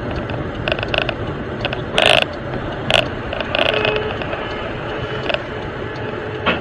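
Road noise inside a moving car's cabin: a steady rumble with irregular rattling clicks, the loudest about two seconds in. A faint steady tone comes in about halfway through.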